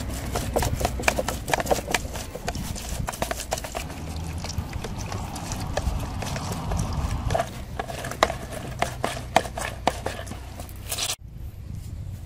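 Red grapefruit halves twisted and pressed on a clear plastic hand citrus juicer: irregular clicks and knocks of the plastic reamer and bowl, over a low rumble, cutting off abruptly near the end.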